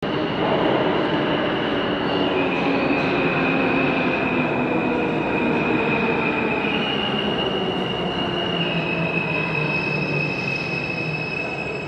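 Subway train running through an underground station: a steady rumble of wheels on rails with a high, sustained wheel squeal over it. The squeal holds one pitch, then jumps slightly higher or lower a few times. The uploader calls it a new grinding sound from the rails.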